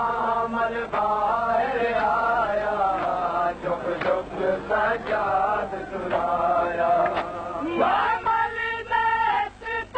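Male voice chanting a noha, a Shia lament, in a melodic recitation.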